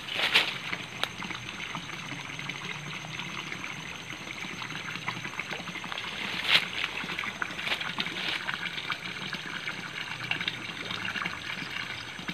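Water trickling steadily into a small fish pond from its inflow channel, just opened so the water runs again. Two short sharp sounds break in, one just after the start and a louder one about halfway.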